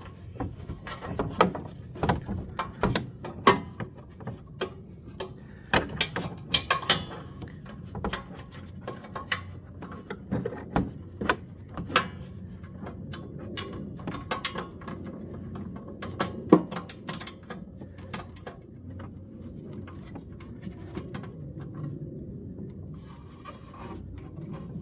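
Ratchet wrench clicking, with its socket clinking and knocking on metal as it is worked blind onto a small hard-to-reach bolt. The clicks and taps are irregular and come thicker in the first half, with one sharp knock about two-thirds through.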